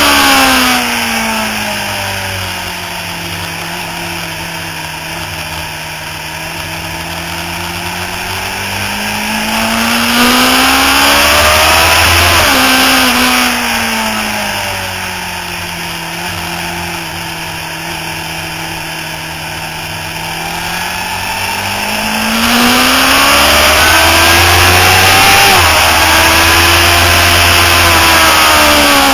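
Motorcycle engine heard onboard under a heavy rush of wind. The revs climb slowly for several seconds and then drop away twice, each time with a sudden jump in pitch as a downshift is made on braking for a corner.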